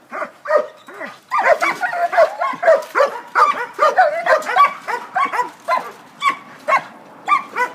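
Dogs barking and yapping, many short high-pitched barks in quick succession and overlapping, thinning out over the last couple of seconds.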